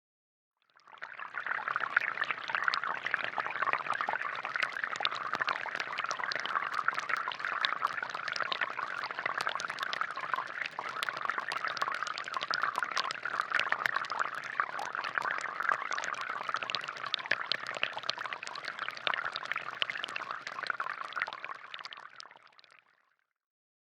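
Water pouring in a steady stream with fine splashing. It fades in about a second in and fades out near the end.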